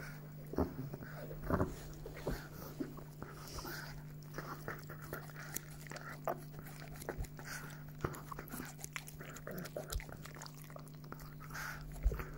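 Chihuahua licking and mouthing close by, irregular wet smacking clicks, over a steady low hum.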